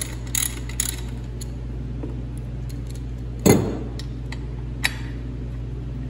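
Metal tools and parts clinking on a workbench: a couple of ratchet clicks at the start, then one loud metal clunk about three and a half seconds in as the ratchet is set down, a sharp click a second later and small ticks as the clutch's ring-gear bolts are handled. A steady low hum runs underneath.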